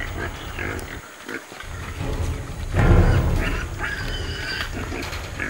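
Pigs in a sty grunting and squealing, with a brief lull about a second in and the loudest stretch about three seconds in.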